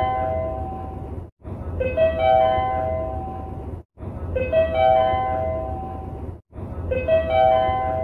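Railway service-information update chime: a rising four-note electronic arpeggio that rings on and fades, repeating about every two and a half seconds with a short silent gap between repeats and a low hum underneath. It starts anew three times.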